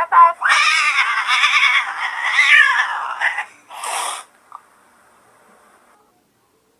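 A cat yowling in one long, wavering cry of about three seconds, followed by a short, harsher noisy burst about four seconds in.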